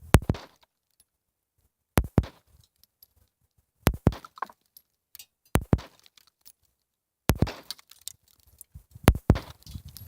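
Star BM 9mm semi-automatic pistol fired slowly, about six shots spaced a second and a half to two seconds apart, each a sharp crack followed by a brief echo.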